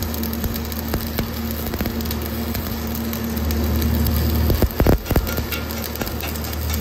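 Stick (shielded metal arc) welding on steel plate: the electrode's arc crackles and sizzles steadily, with a few sharper pops a little under five seconds in and a steady low hum underneath.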